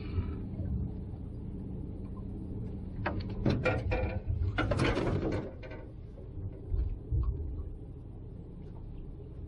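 Gear being handled in a small aluminum fishing boat: a run of sharp clicks and knocks about three seconds in, then a short rustling scrape near the middle, over a steady low hum.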